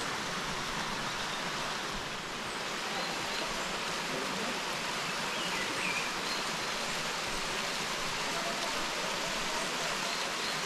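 Steady rush of running water from a river or waterfall, an even hiss without a break.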